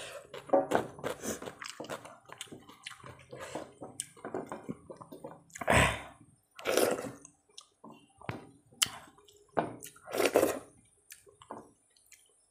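Close-up eating by hand: fingers squishing rice into wet curry gravy on a steel plate, with wet chewing and mouth smacks. The sounds come as irregular short clicks and squelches, with three louder wet smacks, one near the middle, one soon after and one later on.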